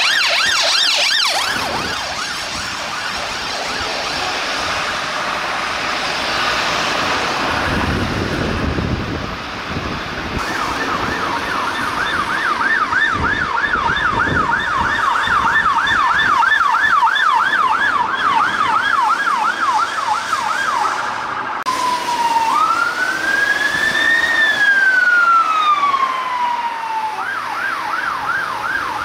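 Emergency vehicle sirens. A fast yelp fades out at first, then a vehicle rumble follows, then a fast yelp sweeping about three times a second. It switches suddenly to one slow wail that rises and falls, and goes back to the yelp near the end.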